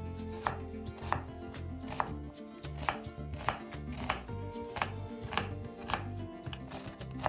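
Chef's knife slicing through an onion half on a wooden cutting board, the blade knocking on the board in an even rhythm of about one and a half cuts a second.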